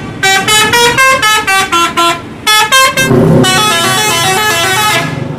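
Coach's multi-tone musical air horn (Indonesian 'telolet' horn) playing a quick tune of short stepped notes, about five a second, with a brief break a little over two seconds in. It stops about five seconds in. From about three seconds in, a bus engine rumbles under the horn.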